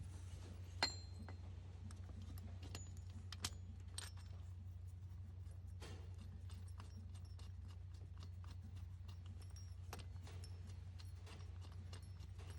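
Scattered light metallic clicks and clinks of an idler pulley, its bolt and washers being handled and threaded on by hand, one sharper ringing clink about a second in. A steady low hum runs underneath.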